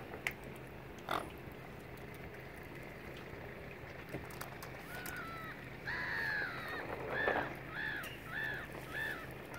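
A bird calling in a quick series of short, arched notes, about two a second, starting about six seconds in, over a steady low background noise.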